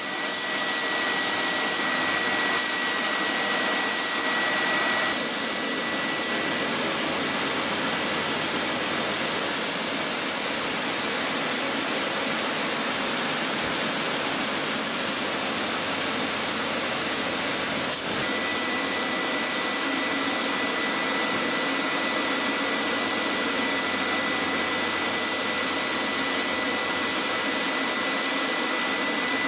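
Belt grinder and its dust extraction running steadily, with a thin high whine that drops out for a stretch in the middle and returns. A single sharp click about 18 seconds in.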